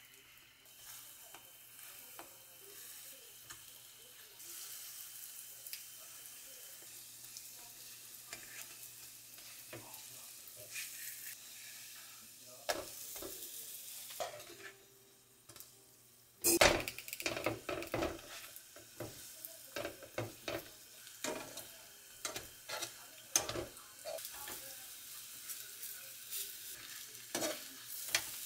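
Hotteok pancakes frying in oil in a nonstick pan, a soft sizzle that slowly grows. About halfway through it turns louder, with repeated clacks and scrapes of a spatula against the pan as the pancakes are pressed and turned, over the sizzling.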